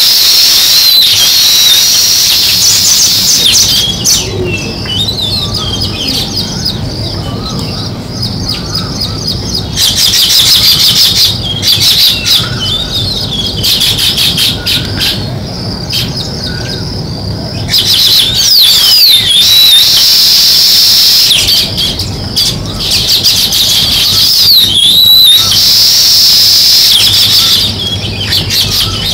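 House sparrows chirping in continuous, overlapping chatter. The chatter eases off twice for several seconds before picking up again.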